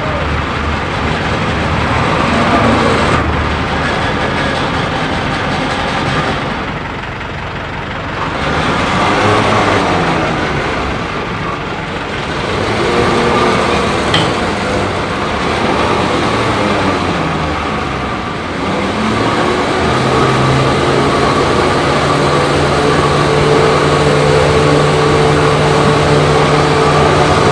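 Hino Dutro 110 MD flatbed tow truck running while a car is let down off its bed on the winch cable; the sound varies at first, then settles into a steady hum about twenty seconds in.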